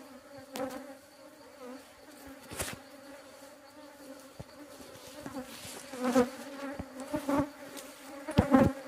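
Honeybees buzzing around an open hive box, a steady hum that swells as bees fly close, loudest about six seconds in and near the end, with a few brief knocks.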